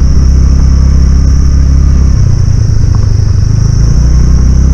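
Motorcycle engine running loudly while riding slowly on a dirt road. Its note changes for a second or so in the middle, then settles back.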